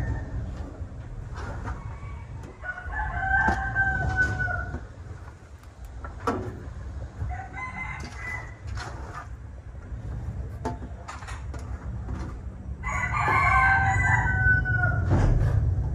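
A rooster crowing twice, about ten seconds apart, each crow drawn out for around two seconds, over a steady low rumble with a few sharp clicks.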